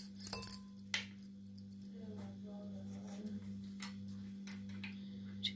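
A steady low hum with a few faint, sharp clicks scattered through it, as a hand scrapes green chilli and ginger paste into a glass mixing bowl of chopped vegetables.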